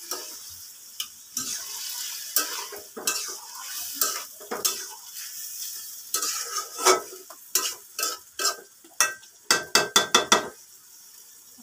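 Spatula stirring and scraping cubed papaya in spice paste around a karahi over a gas flame, the wet masala sizzling under the strokes. A quick run of sharp scrapes and taps against the pan comes near the end.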